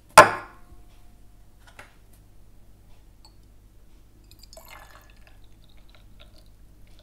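A glass tumbler set down on a wooden tabletop with one sharp clack, then, about four and a half seconds in, tea poured from a teapot into the glass with a faint trickle.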